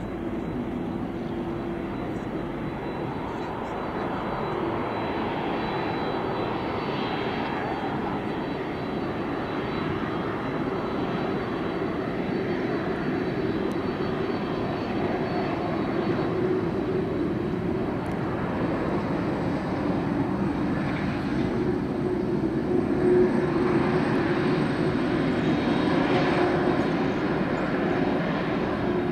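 A McDonnell Douglas MD-10-10F freighter's three General Electric CF6 turbofans running at approach power on final with the gear down: a steady jet drone with a faint thin whine, growing gradually louder as the plane draws near.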